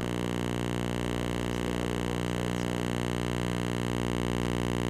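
Steady electrical hum, a buzz with many evenly spaced overtones that holds one level and pitch throughout.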